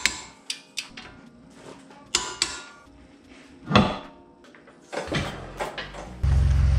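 Metal clicks and clanks of hand tools on a Jeep Wrangler's front brake caliper and wheel, with one heavy thump about halfway through. Near the end a vehicle engine comes in suddenly and runs steadily.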